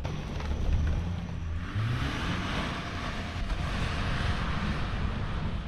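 A vehicle engine running, revving up about two seconds in, with a steady rushing hiss over it.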